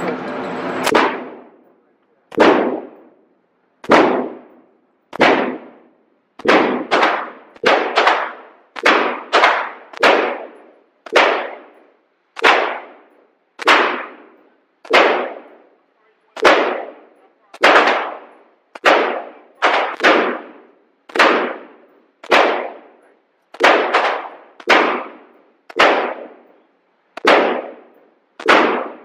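Gunshots being fired at a shooting range: about thirty sharp reports, one every half second to second and a half, some in quick pairs, each trailing off in a short echo.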